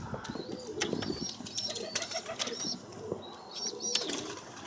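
Pigeons cooing softly, with scattered wing flaps and clicks and faint high chirps.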